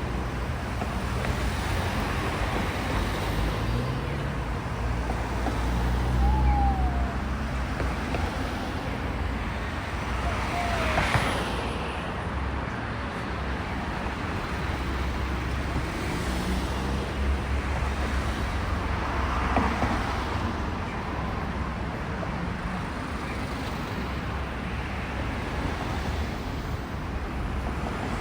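DF200 'Red Bear' diesel-electric locomotive running under load with a steady low engine drone as it pulls a freight train away. Brief high squeals come about 6 and 11 seconds in.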